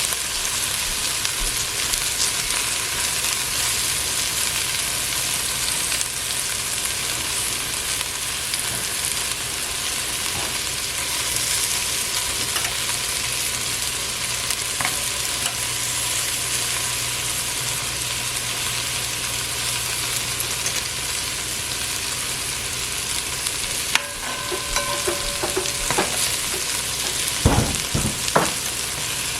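Sliced okra frying in vegetable oil in a pot on low heat, a steady sizzle. Near the end, a few knocks and scrapes of a utensil against the pot.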